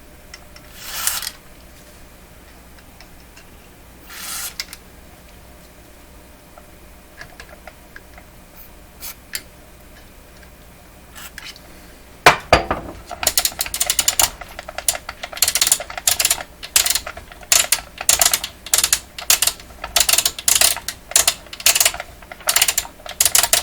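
Two short bursts of contact-cleaner spray into the oscilloscope's switches, then, from about halfway, a rotary switch being clicked back and forth through its detents in quick clusters about twice a second, working the cleaner into the contacts.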